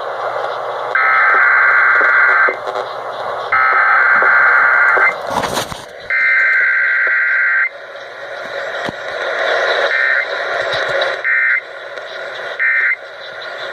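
Emergency Alert System SAME header heard over a radio broadcast: three loud bursts of harsh, warbling digital data tones, each about a second and a half long with about a second between them, which mark the start of an EAS test. Three much shorter bursts of the same tones follow.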